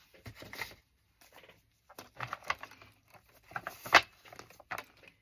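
Stiff paper index cards being handled and sorted: irregular rustling and light clicks as cards slide and flick against each other, with one sharp tap about four seconds in.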